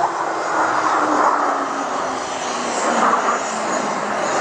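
Blue Angels F/A-18 Hornet jets flying overhead in a four-ship formation, their jet engines making a loud, steady rushing roar. A low tone in it slowly falls in pitch as the formation pulls away.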